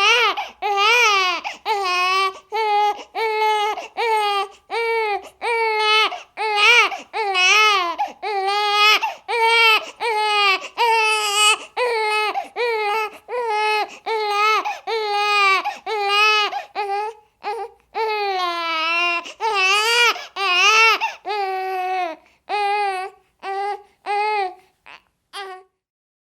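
A baby crying: a long run of short, high wails, about one a second, with a longer wail about two-thirds of the way through and shorter, broken cries near the end before it stops.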